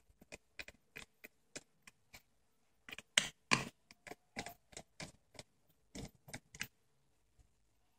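Small screwdriver turning the two tiny screws out of the plastic case of a keychain spy camera: a run of irregular clicks that stops near the end.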